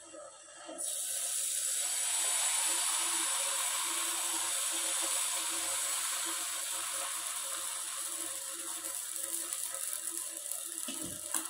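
Dosa batter sizzling on a hot non-stick tawa: a hiss that starts suddenly about a second in as the batter hits the pan, then holds steady and slowly fades while the batter is spread with a ladle.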